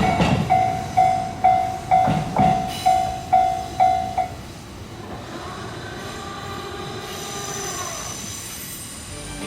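Japanese level-crossing warning bell ringing, about two strikes a second, stopping a little over four seconds in, the sign that the train has cleared the crossing. A faint steady whine follows.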